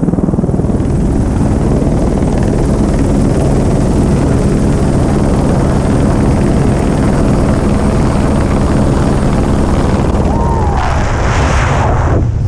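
Helicopter running steadily, heard from beside its open door. About ten and a half seconds in, a rush of wind rises and takes over as the jumpers fall away from the helicopter into freefall.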